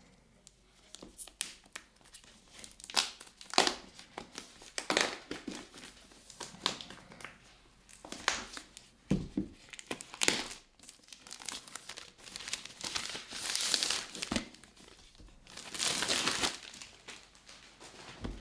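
A tablet's retail packaging being unwrapped by hand: repeated crinkling and tearing, with two longer rustles in the last few seconds.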